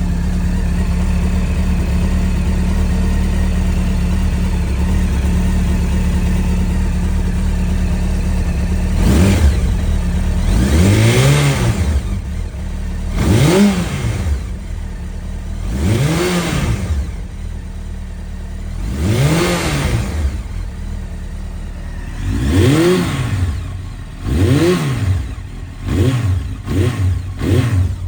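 Honda CBR900RR (SC33) inline-four engine idling steadily, then revved in a series of throttle blips starting about nine seconds in. Each blip rises and falls in pitch, and near the end they come shorter and quicker.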